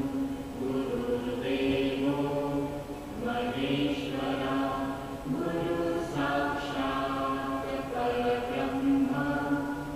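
Background music of voices chanting a devotional mantra in held notes, each note lasting about a second before the pitch moves on.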